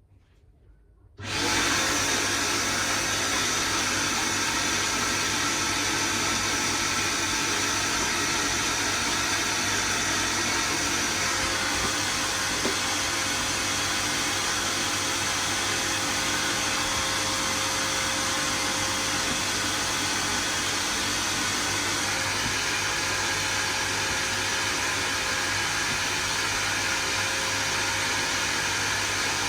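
Wet and dry vacuum cleaner switching on about a second in, then running steadily with an even noise and a low hum.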